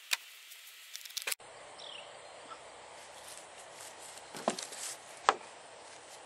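Outdoor background with scratchy clicking at the start that cuts off abruptly, then two sharp knocks near the end.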